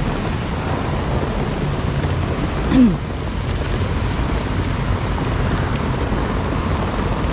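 Steady wind noise on the microphone outdoors, with one short sound a little under three seconds in that falls in pitch.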